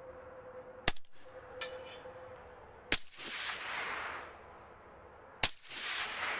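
Three rifle shots from a Primary Weapon Systems Mk109 in 300 Blackout, about two seconds apart, the last two each trailed by an echo rolling off the hillside that dies away over about a second.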